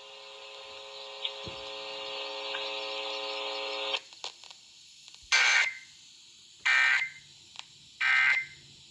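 Emergency Alert System End-of-Message signal: three short, identical, shrill digital data bursts, sent about a second and a half apart, marking the end of the monthly test. Before them, a steady buzzing hum with hiss slowly grows louder, then cuts off about four seconds in.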